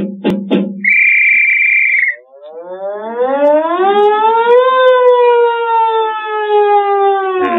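Fire-engine siren winding up over about two seconds, holding a steady wail, then starting to wind down near the end. Before it come a few sharp knocks and a short steady high tone.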